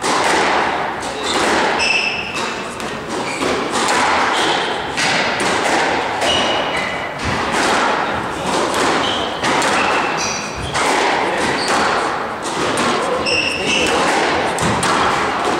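Squash rally: the rubber ball struck by rackets and slapping off the court walls in a steady run of sharp hits, with sneakers squeaking briefly on the hardwood floor between them.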